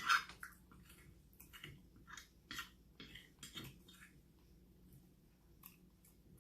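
A person chewing food with wet mouth clicks and smacks at an uneven pace, loudest at the very start and thinning out after about four seconds.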